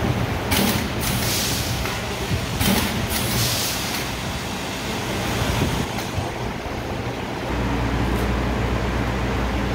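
Automatic granule pouch packing machine running: a steady machine hum with two short spells of air hiss from its compressed-air system. A louder, deeper hum comes in near the end.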